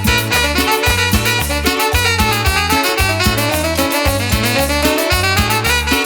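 Live tropical cumbia band playing an instrumental passage: a steady bass and percussion beat under a melody line that rises in pitch partway through.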